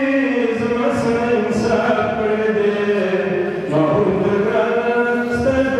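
A man's voice chanting poetry in long, held melodic lines over a microphone.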